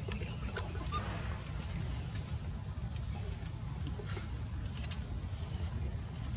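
Insects droning in two steady high-pitched notes, swelling with a fresh call about every two seconds, over a constant low rumble.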